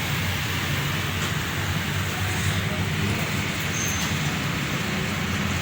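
Old engine oil streaming out of a Toyota V8's open sump drain hole into a drain pan: a steady, even splashing with a low hum beneath it.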